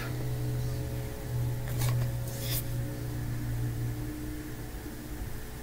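A steady low mechanical hum with a few overtones, easing off after about four seconds, and two short clicks about two seconds in.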